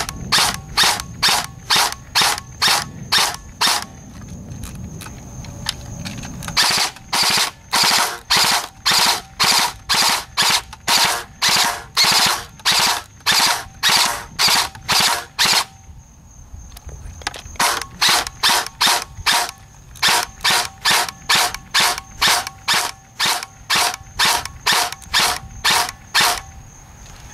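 JG M16A2 airsoft electric rifle firing .20 g BBs in rapid single shots, about three a second, with two short pauses in the string.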